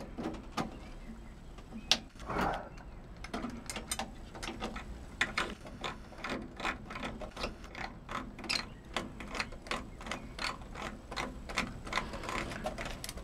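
Socket ratchet clicking in a steady run, about two to three clicks a second, as a transformer mounting bolt is wound in.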